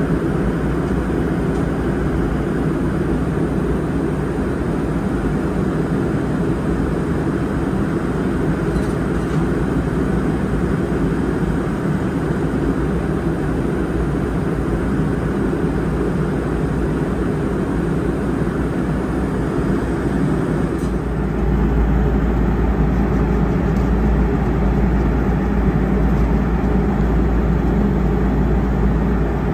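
Steady airliner cabin noise at cruise: an even rumble and rushing hiss of engines and airflow heard from a window seat. About two-thirds of the way through it steps up slightly louder and deeper.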